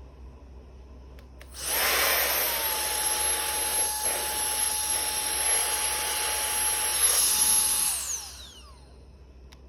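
High-speed turbo fan switched on: its whine rises quickly and settles to a steady high pitch over a loud rush of air, then, about six seconds later, it is switched off and winds down with a falling whine.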